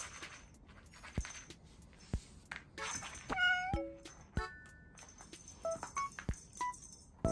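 A cat meows once, a single drawn-out call about three and a half seconds in, over background music with short, high beeping tones and a few soft knocks.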